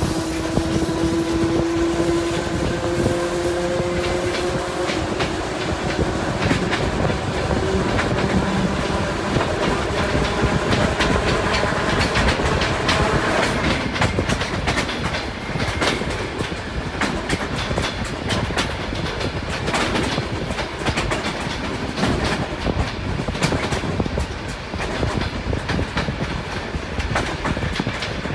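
Train running along the tracks, heard from inside the carriage, with wheels clacking over rail joints. A slightly rising whine fades out within the first several seconds, and the clacking grows denser about halfway through.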